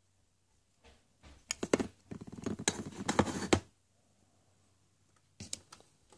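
Hollow plastic surprise eggs and small plastic toys clicking and clattering against each other as a hand rummages through them in a box. A dense run of clicks and knocks starts about a second in and lasts about two and a half seconds, then a few more clicks come near the end.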